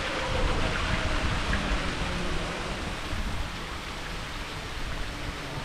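Fountain water splashing into its stone basin in a steady hiss, over a low, uneven rumble.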